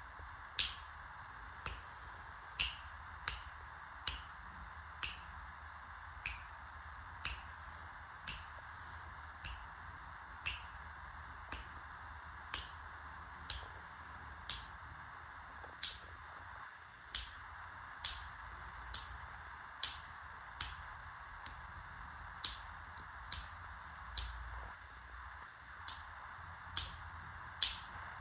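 Sharp, irregularly spaced clicks, about one or two a second, over a steady faint hiss and low hum.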